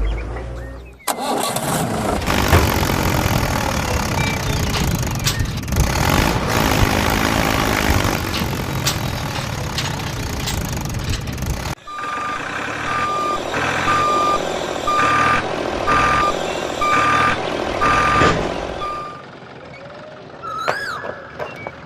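A vehicle engine running with a dense rumble. After about twelve seconds a reversing alarm starts beeping about once a second over the engine.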